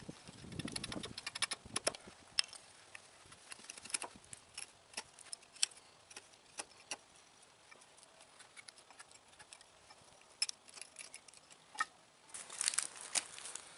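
Hatchet blade shaving a wooden spoon blank: short, sharp cuts and scrapes as slivers split off. There is a quick flurry of cuts near the start, then single cuts with pauses between them, then a cluster of louder knocks and rustles near the end.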